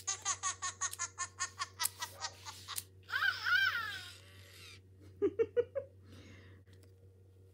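Tobi Robot smartwatch playing its cartoon character sounds as its screen is swiped: a quick run of electronic giggle-like chirps for nearly three seconds, a warbling laugh, then three short chirps past the middle.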